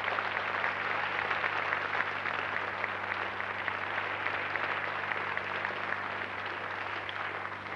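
Studio audience applauding after a musical number, dying away near the end, with a steady low hum underneath.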